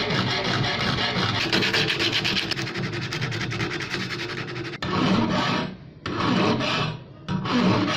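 A steel part of an antique hand pruner is being filed and sanded by hand, metal rasping continuously and fast, then in three separate strokes of about a second each in the last three seconds.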